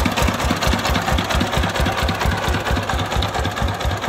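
Công nông three-wheeled farm truck's single-cylinder diesel engine idling, a steady, rapid, even chug.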